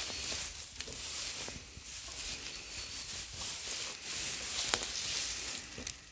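Straw bedding rustling and crackling under moving feet, with a sharp click about three-quarters of the way through.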